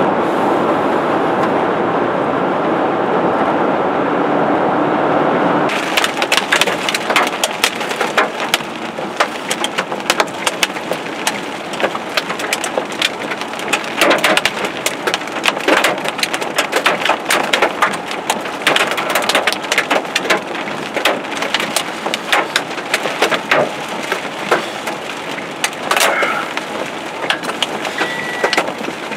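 Steady road and wind noise inside a moving vehicle, then from about six seconds in, rain pelting the windshield and roof in dense, irregular sharp ticks, with a short high beep near the end.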